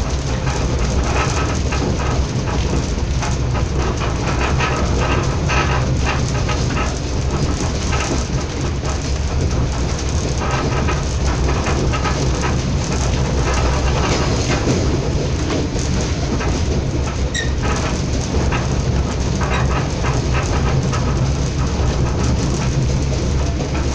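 Passenger train running at speed, heard from inside the carriage: a steady low rumble of wheels on the track with continual rattling and clicking.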